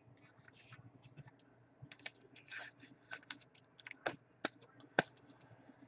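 Faint, irregular light clicks and taps of hard plastic card holders being handled.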